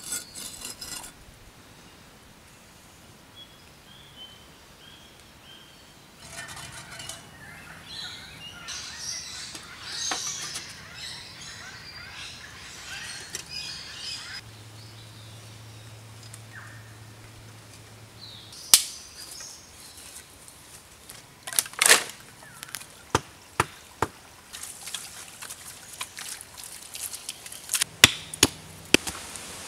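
Wild birds chirping, then in the second half a series of sharp, irregular knocks of a hand stone striking a flat rock.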